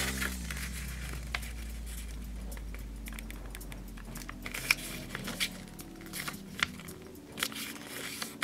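Origami paper crinkling and rustling as hands fold it and press it flat, with a few sharp crackles of the paper.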